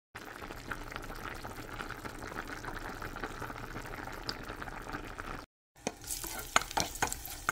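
Food sizzling in hot oil in a cooking pot, a steady dense crackle. After a brief cut about five and a half seconds in, a utensil stirring and knocking against the pot, sharp clicks over a lighter sizzle.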